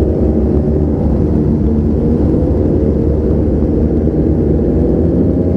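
Motorcycle engine running steadily while riding, its pitch creeping up slightly near the end.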